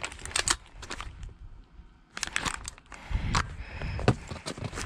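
Clicks and clatter of an AR-style airsoft rifle and its magazines being handled during a reload, in clusters with a short pause, and a louder knock about four seconds in.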